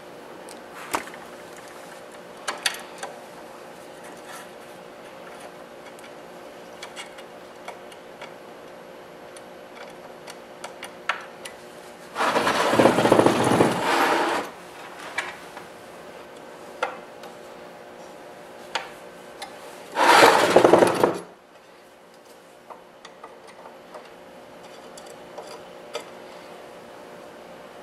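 Two bursts of scraping as the glass print-bed plate and its plastic tabs are worked into the aluminium printer frame, the first about two seconds long and the second about a second, with small clicks and taps of parts being handled in between.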